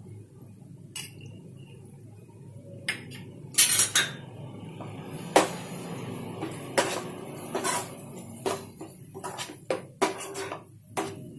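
A metal spoon stirring spiced onion-tomato masala in a nonstick frying pan, scraping and knocking against the pan. After a quieter start with a single click, the knocks come irregularly and grow more frequent from a few seconds in.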